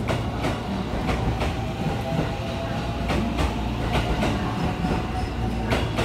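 JR West 223 series 2000 electric multiple unit departing and rolling past, a steady low rumble broken by sharp wheel clicks over rail joints, about ten of them at uneven spacing.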